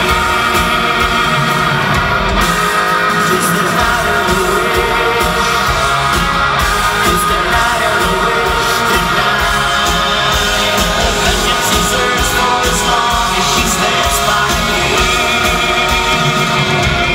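Live heavy rock band playing at full volume, heard from the audience: distorted electric guitars, bass, drum kit and keyboards under a lead singer's vocal. It runs steadily, with no pause.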